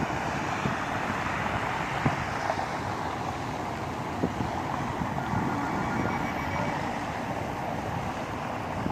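Steady rush of wind buffeting the microphone over the hum of road traffic, with a few light knocks.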